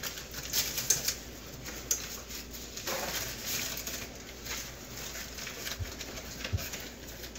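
Pot of chicken broth boiling on the stove, bubbling with soft, irregular pops.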